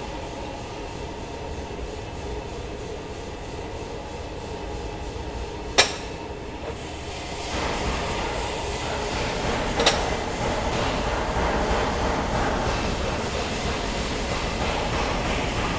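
Steady mechanical rumble of workshop background noise, with two sharp clicks about six and ten seconds in.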